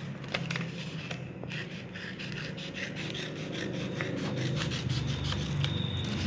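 Metal scissors cutting through folded colour paper: a quick run of snips with the paper rustling against the blades.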